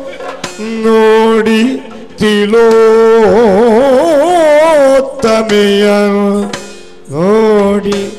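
Yakshagana bhagavata singing in long held, heavily ornamented notes, with a wide wavering passage around three seconds in, in phrases broken by short pauses, over a steady drone with a few sharp drum strokes.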